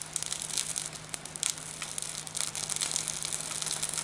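Wood fire burning under an open grill grate, crackling and hissing with many small quick pops.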